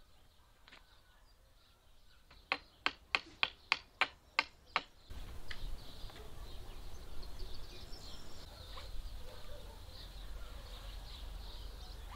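A quick run of about eight sharp knocks of wood on wood, about three a second. Then a steady low rumble, like wind on the microphone, with birds chirping.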